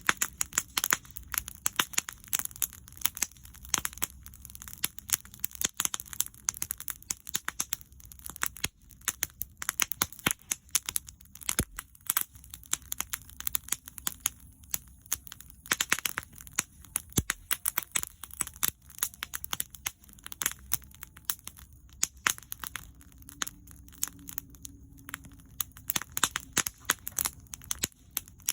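Wood fire crackling, with dense irregular snaps and pops.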